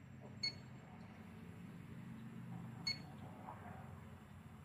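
Elitech ILD 300 infrared refrigerant leak detector giving two short high beeps, about two and a half seconds apart, as it picks up R-407C refrigerant from a barely cracked cylinder valve. A faint low hum runs underneath.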